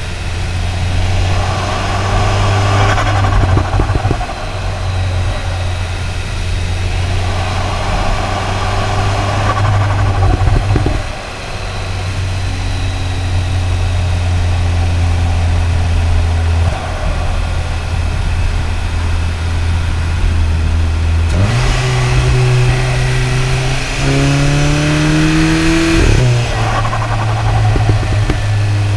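Turbocharged EA888 gen 3 four-cylinder engine of a tuned Cupra Ateca on the move, heard from the intake and the exhaust: a steady drone with two surges of intake rush as it pulls, and brief dips between them. Near the end the revs climb in two steps, then drop sharply.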